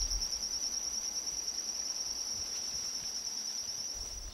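Steady high-pitched insect trill, a cricket-like continuous song, over a faint hiss of forest ambience.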